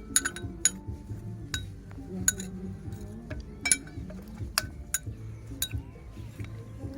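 A metal spoon clinking against a plate or bowl during a meal of rice and mango, about a dozen sharp, irregularly spaced clinks that each ring briefly.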